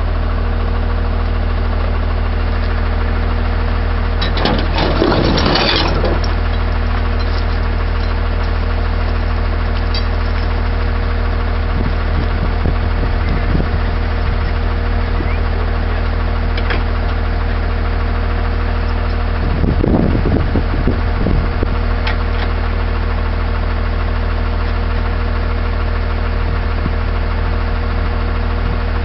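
Tow truck engine idling steadily with an even low hum, with two brief louder rushing noises about five seconds in and again around twenty seconds.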